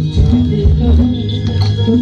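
Instrumental backing music with a repeating bass pattern under steady held notes.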